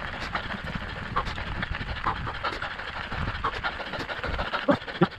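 Fast-forwarded riding noise of a mountain bike climbing a gravel forest road: tyres crunching on gravel, sped up into a rapid, even chatter.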